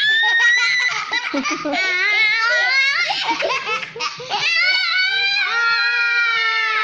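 Young child laughing hard in high-pitched peals, ending in a long drawn-out squeal.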